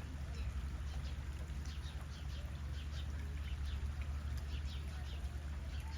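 Birds chirping: many short, high, falling chirps come one after another over a steady low hum.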